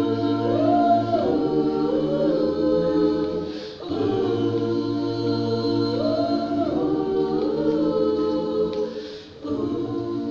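Mixed choir of men and women singing a slow gospel song in long held chords. It comes in two phrases with a short breath break between them about four seconds in, and another near the end.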